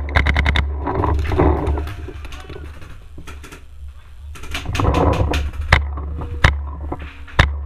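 Paintball marker firing a fast string of shots, about a dozen a second, that stops about half a second in. Single sharp shots follow about a second apart near the end, over a steady low rumble.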